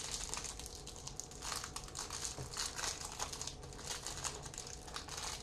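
Plastic wrapper of a trading-card pack crinkling as cards are handled, a steady run of small crackles and clicks.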